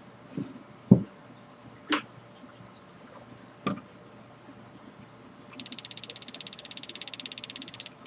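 Jeweller's bench work: a few separate knocks of small tools or parts being set down, then a fast, even mechanical clicking for about two seconds that stops and starts again near the end.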